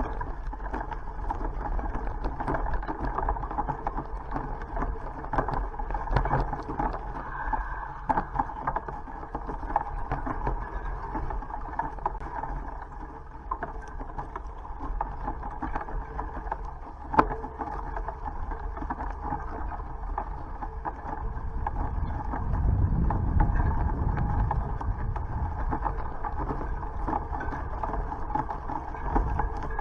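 Bicycle riding along a country road: steady rolling and wind noise with frequent small rattling clicks from the bike. A heavier low rumble swells about two-thirds of the way through.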